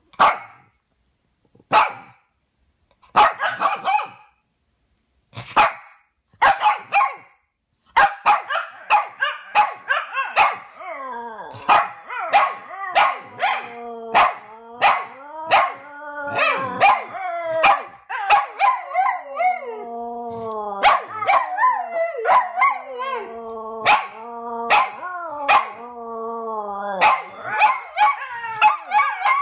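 Two small dogs, a Shih Tzu and a Lhasa Apso, barking in single sharp yaps spaced a second or two apart, then from about eight seconds in breaking into continuous howling, their wavering, sliding howls overlapping like a duet.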